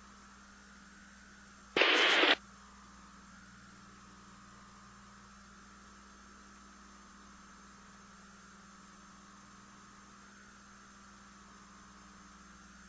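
Steady low hum and hiss with a faint wavering whistle, broken about two seconds in by a loud burst of static lasting half a second.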